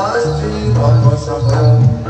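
Loud live jaranan music from a Javanese gamelan-style ensemble: repeated held low tuned-percussion tones under a pitched melody line that slides upward.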